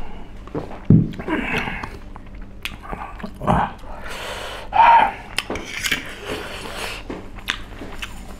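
Eating sounds at a table: a sip from a mug, a low thump about a second in as the mug is set down, then a metal fork clinking and scraping on a ceramic plate, with the eater breathing between bites.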